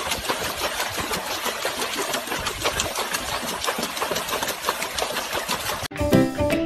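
Rapid, continuous splashing of water as a dog paddles its front legs furiously in a plastic tub. It cuts off suddenly near the end, where music begins.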